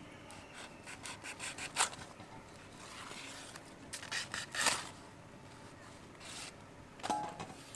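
Softened banana leaf being cut into pieces, short scraping, rustling strokes: a quick run about a second in, more around the middle, and a couple near the end.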